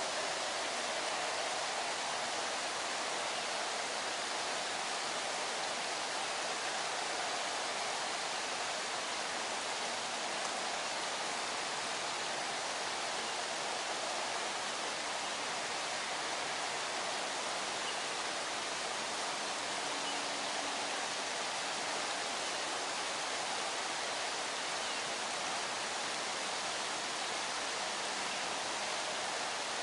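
A steady, even rushing hiss, like running water, with no distinct sounds on top of it.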